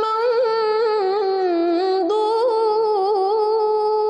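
A woman's voice reciting the Quran in the bayati melodic mode, drawing out one long ornamented note with a quavering, trill-like waver. The pitch sags lower in the middle and steps back up about two seconds in.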